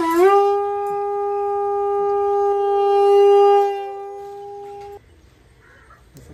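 Conch shell (shankh) blown in one long steady note that scoops up at the start. It swells about three seconds in, eases, then stops abruptly about five seconds in.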